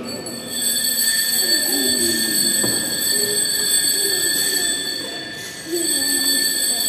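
Altar bells shaken in a steady, continuous ring, stopping briefly a little after five seconds in and then ringing again: the bell ringing that marks the elevation at the consecration of the Mass.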